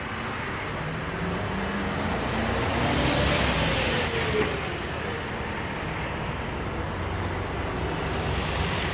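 Tour coach's diesel engine pulling away and passing close by, its pitch climbing as it accelerates and loudest about three seconds in, with a brief clack just after four seconds over steady traffic noise.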